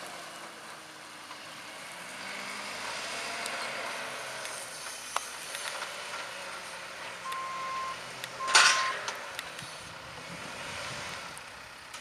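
JCB 542-70 Agri Xtra telehandler's diesel engine running and changing pitch as it handles big square straw bales. Its reversing alarm beeps twice, a little past halfway, and a short loud hiss comes with the second beep.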